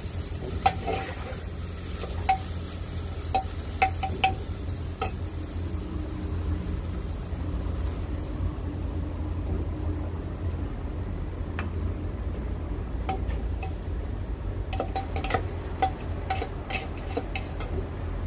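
Metal cookware clinking: a lid and a spoon knocking against aluminium pots, in short ringing clinks. They come in two clusters, one in the first few seconds and another toward the end, over a steady low rumble.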